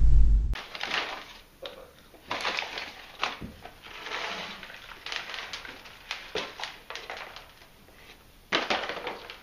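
Crinkling and crunching from a paper popcorn bag and its popcorn being handled, in irregular bursts, with the loudest burst near the end.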